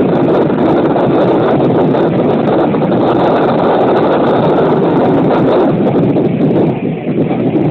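Loud wind rush on the microphone held out of the open window of the moving KiHa 205 diesel railcar, mixed with the railcar's running noise. The level dips slightly near the end.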